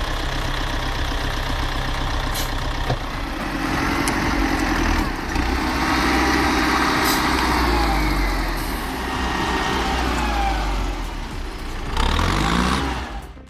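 Heavy machine's engine running, its pitch rising and then easing back down over several seconds in the middle as it is revved under load.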